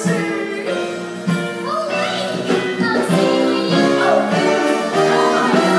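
Several voices singing a musical-theatre song over a pit band, holding sustained notes.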